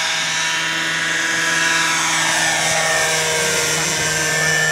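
Radio-controlled Vario Dauphin scale model helicopter with a petrol engine, four-blade main rotor and Fenestron ducted tail rotor, in flight: a steady engine and rotor whine whose pitch dips and rises about halfway through.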